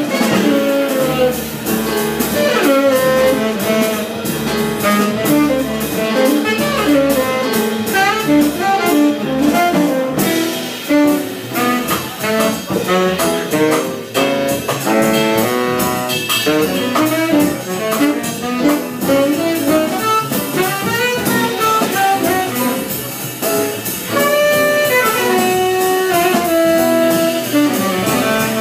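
Live small-group jazz: a saxophone plays quick runs of notes over upright bass and a drum kit with cymbals.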